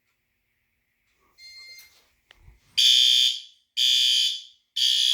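Fire alarm horn sounding loud pulsed blasts, three of them about half a second long and a second apart, starting nearly three seconds in after a click. The system has gone into alarm. A faint high steady whine is heard before the horn starts.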